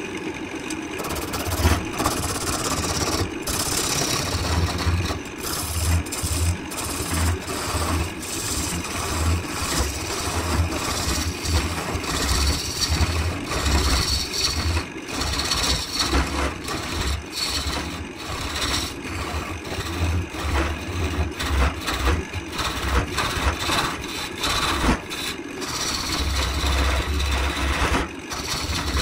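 Wood lathe running while a hand-held turning tool cuts the spinning end of a turned wooden vessel, a steady scraping cut with many short sharp catches and an uneven low rumble that comes and goes.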